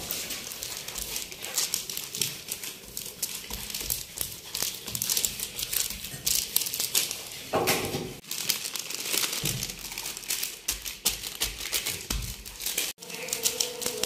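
Thin plastic sheet crinkling and rustling under hands as they press and spread a soft minced chicken mixture flat on it. Background music comes in near the end.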